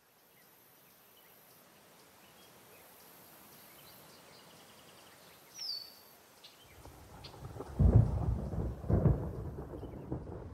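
Thunder rumbling, building from a faint steady hiss into deep rolling peals, the two loudest near the end. A short high chirp sounds about halfway through.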